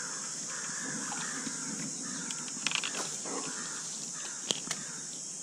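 Outdoor summer ambience: a steady high-pitched insect drone, with a rasping buzz repeating a little faster than once a second, and a few sharp clicks around the middle.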